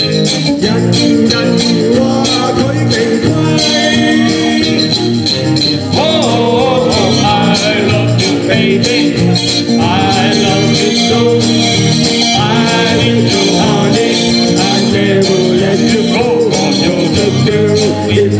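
Live band playing an upbeat pop song through PA speakers, with a steady beat.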